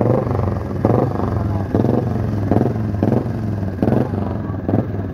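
Vintage motorcycle engine running at low speed as the bike rides past, a steady low drone with louder surges roughly once a second.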